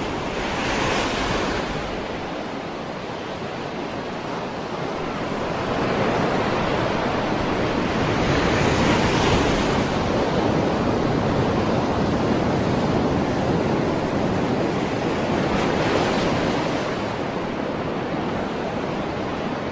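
Rushing ocean surf: a steady wash of waves that slowly swells and eases, standing in for the sound of flood water.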